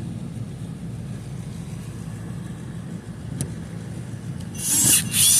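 A low steady hum, then about four and a half seconds in a Denali 4-volt cordless stick screwdriver's motor whirs loudly at a high pitch, stops for a moment and starts again.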